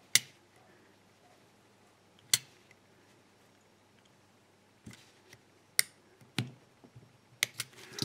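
A few sharp, irregularly spaced clicks from a utility knife blade cutting and prying at the plastic cover of a small aluminium padlock: one at the start, one about two seconds in, then several close together in the second half.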